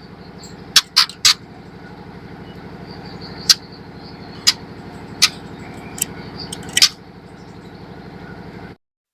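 About eight short, sharp call notes, scattered and irregular, from a juvenile white-rumped shama (murai batu trotol), over a steady low buzz. The sound cuts off abruptly near the end.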